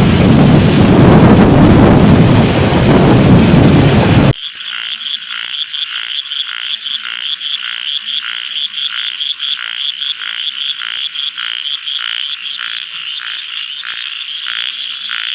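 A loud, even rushing noise cuts off abruptly about four seconds in. After it comes a steady chorus of frogs croaking in rhythmic pulses, about three a second, that runs on to the end.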